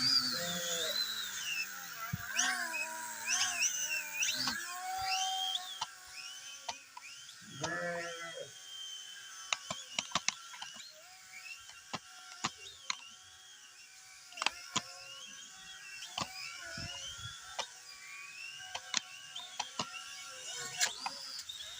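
Small folding-arm drone's motors, one a newly fitted brushless DC motor, whining in a rising and falling pitch as the throttle changes, strongest in the first five seconds and again around eight seconds in. After that the whine is steadier and quieter, with scattered sharp clicks and knocks.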